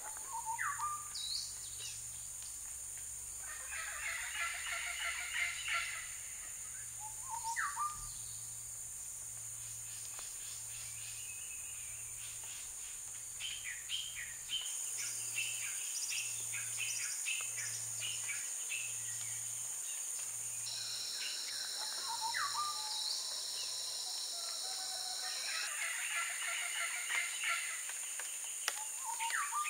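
Rainforest dawn chorus: a steady high insect drone, joined by a second, lower insect trill for a few seconds after the middle, under birds giving a short rising call about four times and two bursts of quick chattering.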